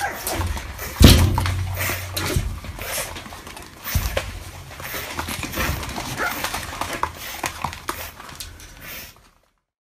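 A puppy scuffling at a mirror on a wooden floor: a run of clicks and knocks from paws and claws against the glass and floor, with a heavy thump about a second in and another near four seconds, and small dog sounds among them. The sound cuts off just before the end.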